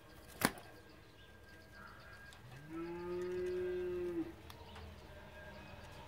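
A sharp click about half a second in, then one low, drawn-out animal call lasting nearly two seconds that glides up briefly and then holds steady.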